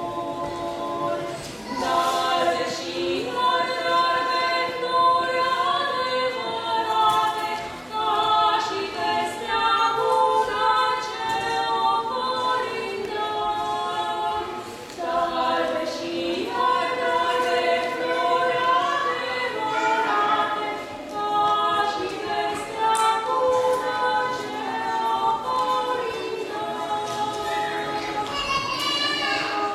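Two women's voices singing a Romanian Christmas carol (colindă) together, unaccompanied, in sung phrases with short breaks between them.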